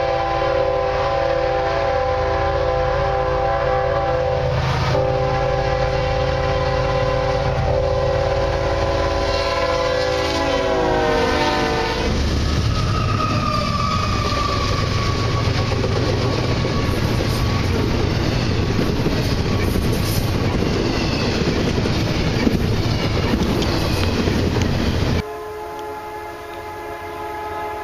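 CSX ES40DC-led intermodal train blowing its multi-chime air horn in two long blasts on approach to a grade crossing, the chord dropping in pitch as the lead locomotive passes about eleven seconds in. The locomotives and rolling freight cars then rumble and clatter past with a squeal. Near the end a quieter, distant train horn sounds after a cut.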